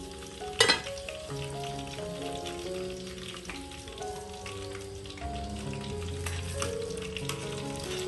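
A whole fish frying in a wok of hot oil, sizzling and crackling steadily. About a second in comes a sharp metal clank as a pot lid is set down. Soft background music plays underneath.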